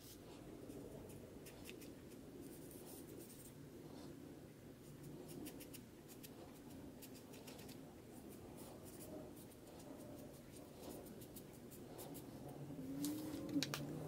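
Faint scratching and rustling of hands handling a yarn-and-ribbon corsage on paper, with scattered light clicks over a low steady hum.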